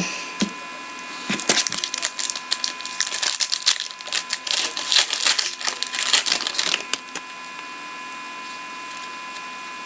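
Crinkling and crackling of packaging being torn and handled for about six seconds, as a pack of trading cards is opened, over a steady electrical hum.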